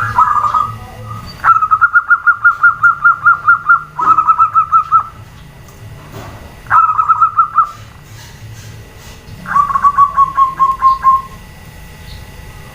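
Zebra dove (perkutut) calling: five runs of rapid, evenly spaced cooing notes, about seven a second, separated by short pauses, the last run dropping slightly in pitch.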